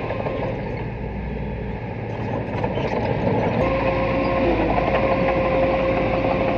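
Small bulldozer's diesel engine running steadily. A thin whine drops out briefly and comes back about three and a half seconds in, as the engine gets slightly louder.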